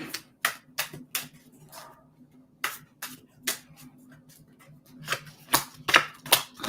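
A deck of tarot cards being shuffled and handled: a run of sharp card clicks and slaps, a few a second, coming faster and louder near the end, over a faint low hum.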